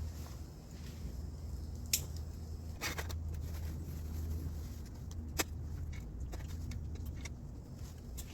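Irregular light clicks and taps over a steady low rumble.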